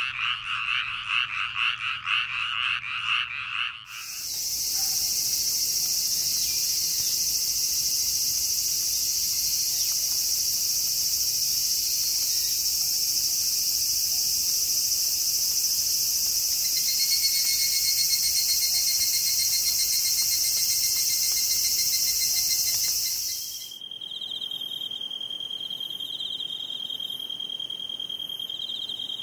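A chorus of frogs calling in rapid pulses, cut after about four seconds to a dense, steady chorus of cicadas. Near the end this gives way to insects chirping in a steady high trill with a regular pulse.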